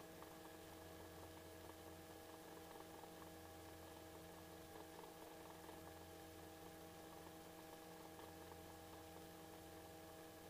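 Near silence: a faint steady electrical hum made of several fixed tones, with no engine or rotor sound coming through.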